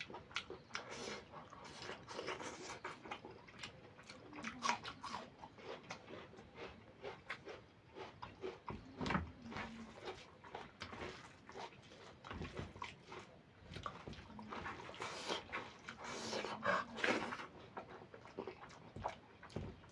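Close-miked eating sounds of a person eating goat liver curry with rice: irregular wet chewing, lip-smacking and mouth clicks, busiest about three quarters of the way through.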